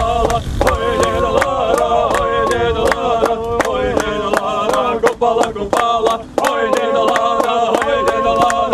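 Background music: a song with a sung melody of held notes over a steady beat.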